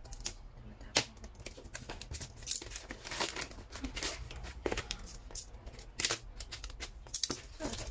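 Clear plastic shrink-wrap being peeled and torn off a cardboard biscuit gift box, crackling and crinkling in irregular snaps, the sharpest about a second in.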